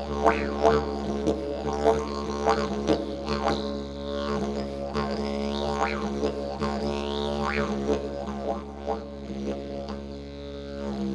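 Didgeridoo playing: a steady low drone with rhythmic accents and overtones that sweep up and down.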